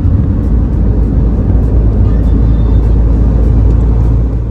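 Car on the move: a loud, steady low rumble of engine, road and wind noise, with music that has a steady beat over it.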